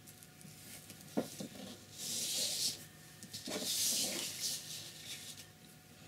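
A sheet of painting paper sliding and rustling across the table as it is turned by hand: two hissy swishes, with a couple of light knocks about a second in.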